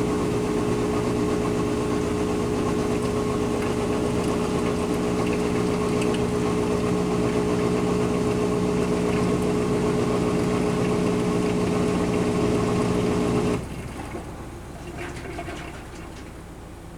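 Kenmore Series 500 high-efficiency washing machine in its spin cycle, spinning at steady speed with a loud, even hum. About thirteen seconds in the hum cuts off suddenly, leaving a much quieter rumble.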